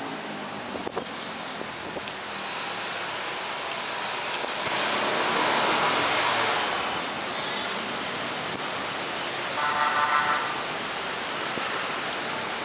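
Busy street traffic: a steady rush of engines and tyres that swells as vehicles pass about five to seven seconds in. About ten seconds in, a horn sounds a quick run of short toots.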